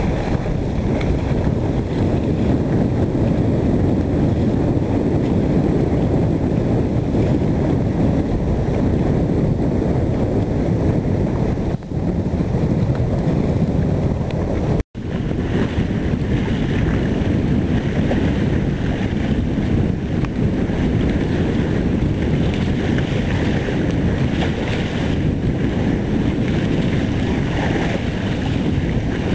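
Steady wind buffeting the microphone over water rushing and splashing past the hull of a sailing outrigger canoe under way. The sound cuts out for an instant about halfway through.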